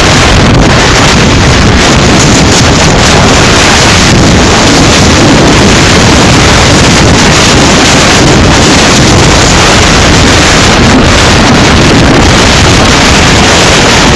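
Loud, steady wind noise buffeting the microphone of a camera carried by a skier moving downhill.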